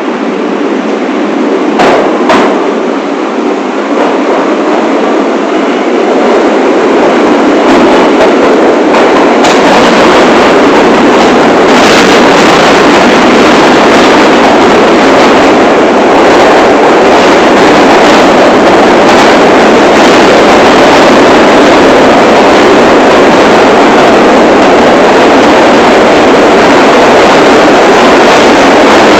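New York City subway train running on the rails, heard from inside the front car: a loud, steady rumble and rail noise that grows louder over the first several seconds and then holds. There are two sharp clicks about two seconds in.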